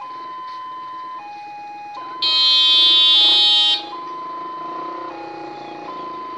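Railway level-crossing warning alarm sounding: an electronic two-note signal that alternates between a higher and a lower tone about every second, the sign that a train is coming and the barrier is closed. About two seconds in, a loud horn blast lasts about a second and a half.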